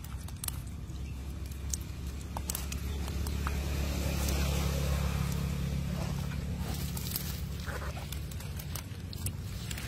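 Short wet squelches and clicks from live eels writhing against each other in hollowed pumpkin halves, over a steady low motor hum that swells to its loudest about halfway through and then eases.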